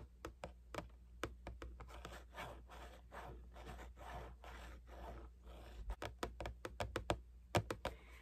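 Fingers tapping on a cardboard figure box for ASMR: many quick, irregular taps, with some scratching in the middle and a flurry of sharper taps near the end.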